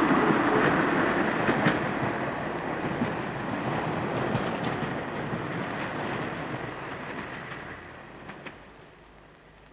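Diesel multiple unit railcar running along the track, its wheels clicking over the rail joints, the sound fading steadily as it draws away.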